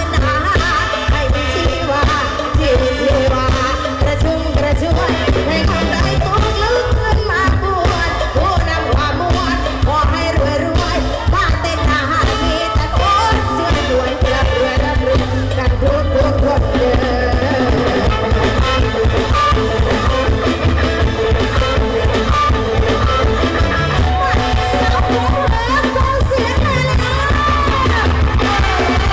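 A live band with drum kit and electric guitars plays loudly through a large PA while a female singer sings the lead into a microphone, over heavy, steady bass.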